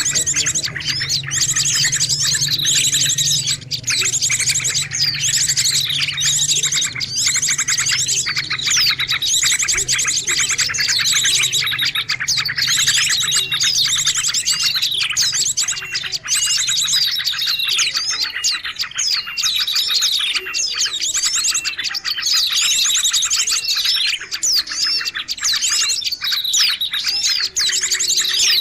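Songbird singing continuously: rapid high trills mixed with repeated downward-sweeping whistles. A low hum runs underneath and stops about two-thirds of the way through.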